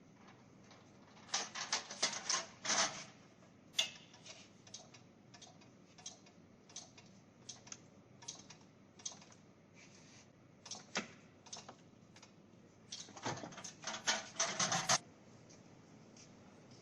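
Irregular light clicks and taps from small hard objects, with a quick flurry about a second in and another near the end and single ticks scattered between.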